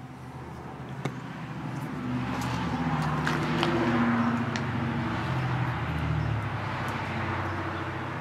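A motor vehicle passing, its engine growing louder to a peak about four seconds in and then fading, with a few faint clicks over it.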